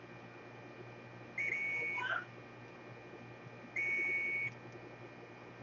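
Two steady, high-pitched electronic beeps, each just under a second long and about two and a half seconds apart, over a faint electrical hum.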